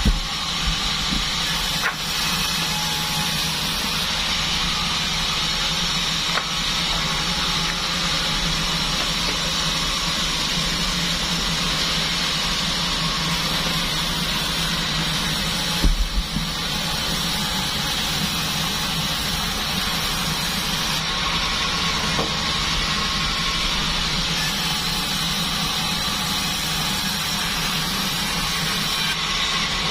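Band sawmill running steadily, a machine hum under a continuous hiss, with a short knock at the start and another about halfway through.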